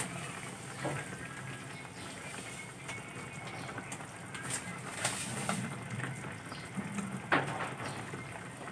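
Pork adobo sauce simmering in a frying pan, bubbling with scattered small pops, with a few low cooing sounds in the background.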